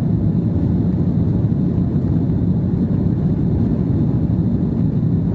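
Steady low rumble of a jet airliner's cabin in flight, heard from a window seat.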